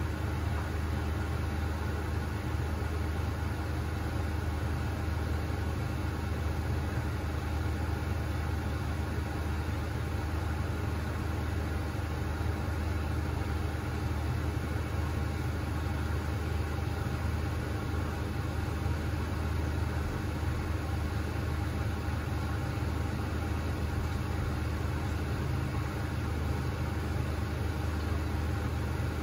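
Beko WMB71642W washing machine running with a steady, even low hum that holds unchanged throughout.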